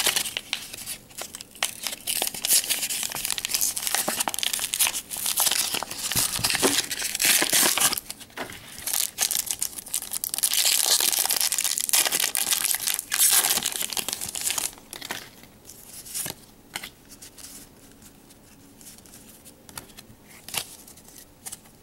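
A Pokémon card blister pack being torn open: plastic and foil packaging crinkling and tearing in dense bouts, dying down to scattered rustles and clicks after about fifteen seconds.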